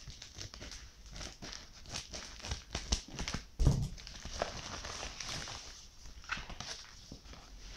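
Scissors cutting a plastic bubble mailer and the plastic crinkling and crackling as the package is handled, with one dull thump about halfway through.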